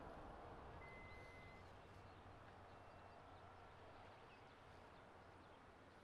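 Near silence: faint outdoor ambience whose low wash of noise fades over the first couple of seconds, with a few faint bird chirps.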